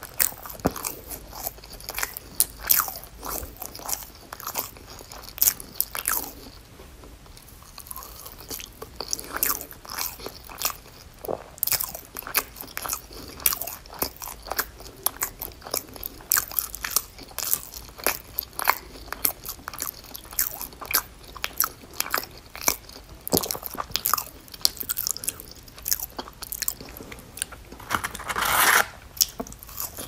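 Close-miked chewing of crunchy fried food (a meal of chicken nuggets and Cajun fries): a steady run of crisp crunches and mouth clicks, with a brief lull about seven seconds in and a louder, denser stretch of crunching near the end.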